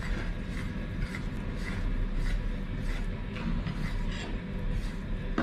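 Fingers rubbing and mixing a small heap of ground spices and coconut oil on a ceramic plate: soft, irregular scraping strokes over a steady low hum.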